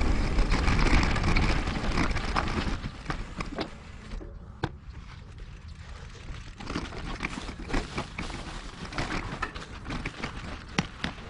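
Wind rushing over the microphone of a moving bicycle, dying away over the first few seconds as the bike slows, followed by scattered irregular clicks and taps.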